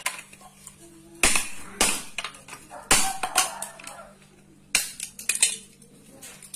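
Plastic TV remote control banged hard against a hard surface to force its casing open: a series of sharp plastic knocks and clacks in three quick clusters, with rattling as the shell comes apart.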